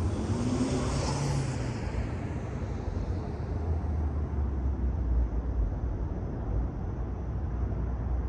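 Honda Civic Type R (FL5) turbocharged 2.0-litre four-cylinder running with a K&N high-flow air filter fitted, giving a steady low rumble. A brief hissing swell rises and falls about a second in.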